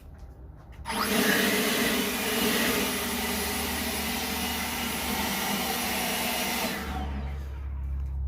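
Kobalt brushless cordless leaf blower switched on about a second in, running at a steady whir with a rush of air, then switched off near the end and spinning down. It is fairly quiet for a blower.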